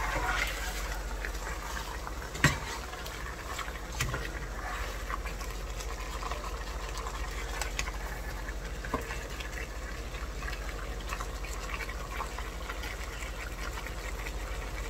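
Chicken pieces bubbling in spiced liquid in a nonstick pot while a spatula stirs and turns them, with wet scraping and small clicks, and a sharp knock of the spatula on the pot about two and a half seconds in.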